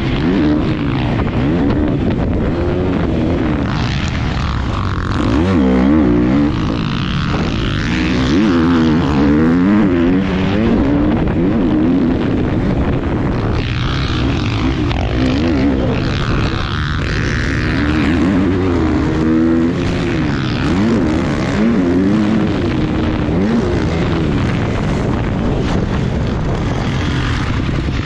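Motocross dirt bike engine racing hard, its pitch rising and falling over and over as the throttle is opened and closed through the corners and jumps.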